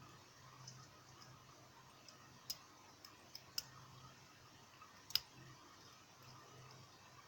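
Dimple pick working inside a half-euro dimple lock cylinder: a handful of small, sharp metallic clicks of the flag pick against the pins and keyway, the loudest about five seconds in.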